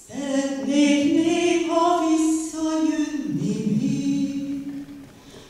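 A woman singing solo in Hungarian: a slow phrase of long held notes that dies away shortly before the end, with the next phrase starting right at the end.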